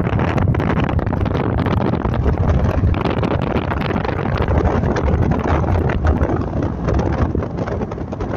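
Steady wind rumbling on the microphone, mixed with the running noise of a slowly moving car.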